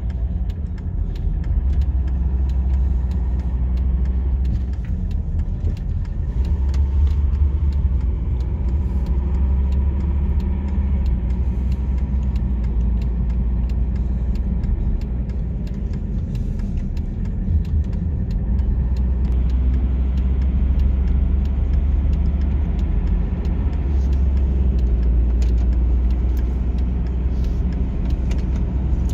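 Steady low rumble of a car driving at motorway speed, heard from inside the cabin: road, engine and wind noise.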